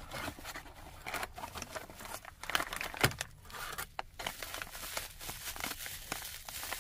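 Plastic bubble wrap crinkling and rustling as it is handled and pulled about, with irregular crackles and one sharper click about three seconds in.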